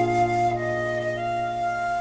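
Background music: an instrumental interlude of a slow ballad, a melody holding long notes over a sustained chord.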